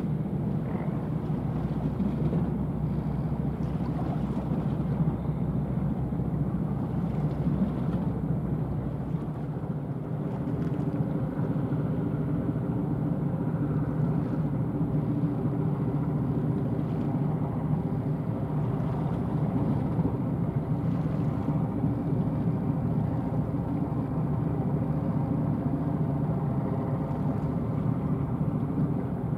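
A 499-ton coastal sand carrier's diesel engine passing as a steady low drone. A hum of evenly spaced tones grows clearer from about a third of the way in.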